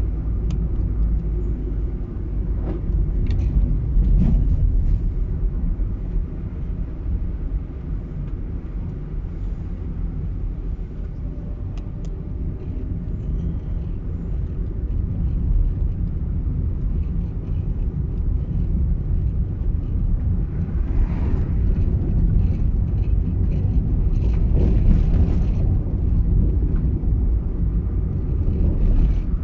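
Car driving along a road: a steady low rumble of tyres and engine, with a few faint brief ticks.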